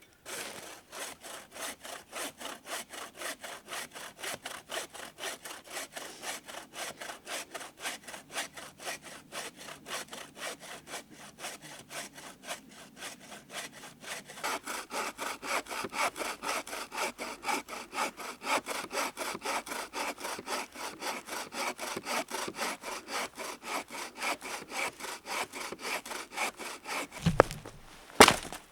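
Hand saw cutting through a firewood log in steady back-and-forth strokes, about three a second, the strokes growing louder about halfway through. Two sharp knocks near the end.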